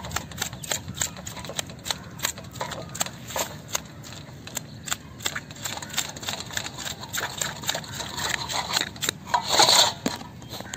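Scales being scraped off a large carp in a steel bowl: quick scratchy strokes, three or four a second, with a louder, longer scrape near the end.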